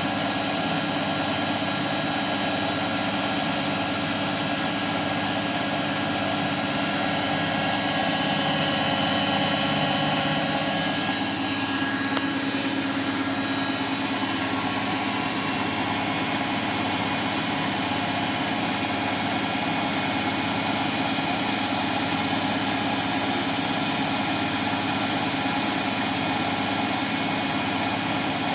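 Beko Eco Care WMA 1510 washing machine on its final high-speed spin: the drum and motor running steadily with a whine of several high steady tones, which shift slightly about twelve seconds in.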